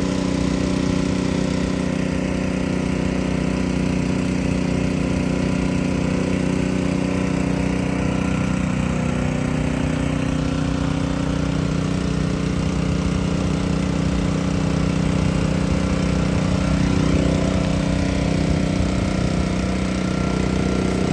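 An engine idling steadily, with an even, unchanging hum.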